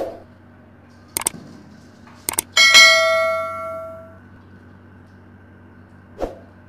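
Subscribe-button animation sound effects: two quick pairs of mouse clicks, then a bright bell ding about two and a half seconds in that rings out and fades over about a second and a half. A single dull thump comes near the end.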